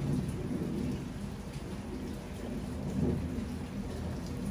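Steady rain coming down pretty good but not pouring, a continuous hiss with a deep rumble underneath and a few scattered drop ticks.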